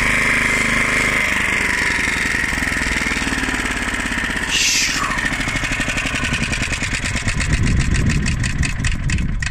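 Briggs & Stratton 3.5 hp side-valve, vertical-shaft petrol engine on a 1976 Hayterette rotary mower, running. About halfway through there is a short scrape whose pitch falls. After it the engine runs with distinct, evenly spaced firing beats.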